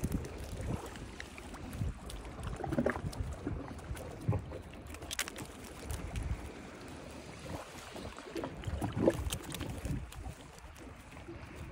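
Wind rumbling on the microphone by the sea, with scattered clicks and rustles as a mesh keep net holding fish and a crab is handled.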